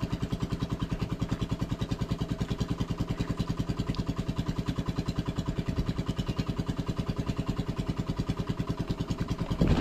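A small engine idling steadily with a rapid, even putter.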